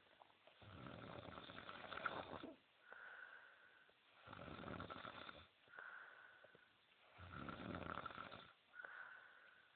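Faint, slow, regular snoring: three rasping snores about three seconds apart, each alternating with a quieter, whistling breath.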